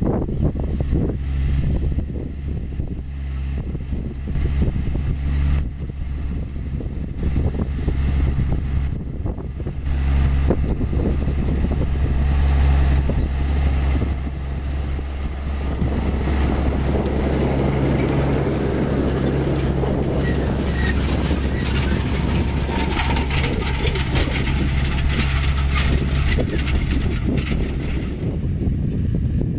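Case IH 140 tractor's diesel engine running steadily under load as it pulls a John Deere 980 field cultivator through the soil. It is louder around the middle as the tractor passes close by.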